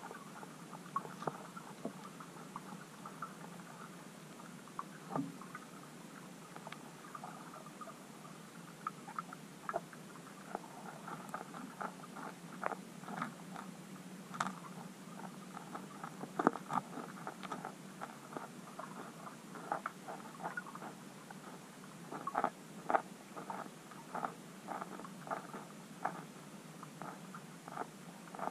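Irregular soft clicks and crackles under water, several a second and coming in clusters, from bream and tench feeding on the bottom close to the camera, over a steady low hum. The loudest clicks come about halfway through and again a few seconds before the end.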